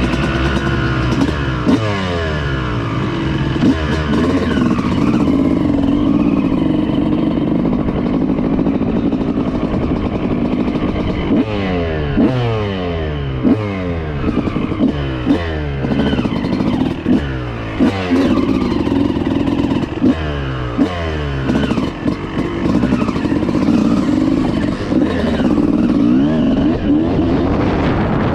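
1995 Honda CR250's single-cylinder two-stroke engine being ridden hard. It revs up in repeated rising sweeps, drops back with each gear change or throttle chop, then revs up again, with occasional knocks and clatter.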